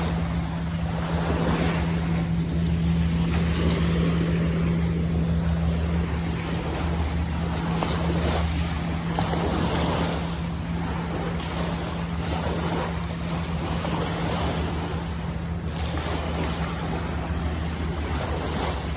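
Small waves lapping and washing onto a gravel shore, with wind buffeting the microphone in slow swells, over a steady low mechanical hum.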